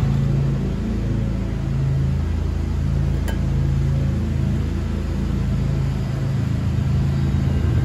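A low, steady mechanical hum of a running motor, with one sharp click a little over three seconds in.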